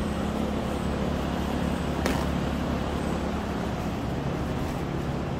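A steady low mechanical hum, with one short sharp click about two seconds in.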